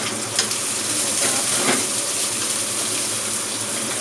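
Shallots sizzling in hot oil in a frying pan, a steady hiss as they fry until fragrant.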